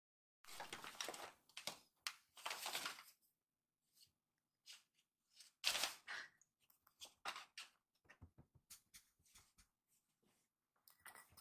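Crumpled brown paper bag crinkling and rustling in short bursts as a kitten moves in and around it, the loudest burst a little before the middle, followed by light scratches and taps.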